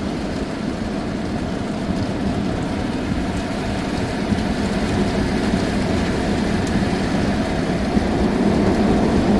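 Steady heavy rain and wind on a stationary car, heard from inside the cabin over a low hum, growing slightly louder toward the end as the storm's precipitation core arrives.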